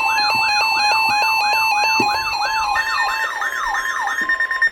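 Emergency alert tone: a siren-like pitch sweeping rapidly up and down, about two and a half times a second, over steady beeping tones. It cuts off abruptly just before the voice announcement.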